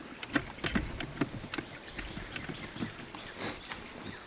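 Footsteps crunching on a woodland trail, an irregular series of sharp clicks, with faint bird chirps behind them.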